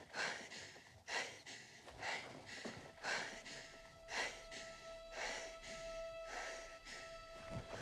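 A person breathing hard and rhythmically, about one breath a second, while a single held musical tone fades in about three seconds in and sustains under the breaths.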